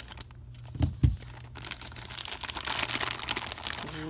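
Plastic poly mailer being crinkled and torn open by hand: a crackling rustle throughout, with two low thumps of the package being handled about a second in, then denser crinkling and tearing in the second half.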